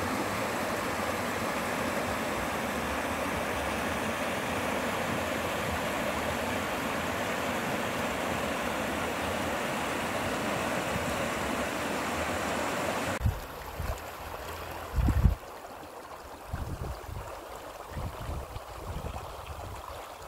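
Steady rush of a flowing stream for about the first thirteen seconds. It cuts off suddenly to a quieter background broken by irregular low thuds and rumbles, the loudest about two seconds after the cut.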